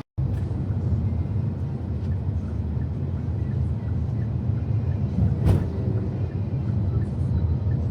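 Steady low rumble of a moving vehicle, with one sharp click about five and a half seconds in.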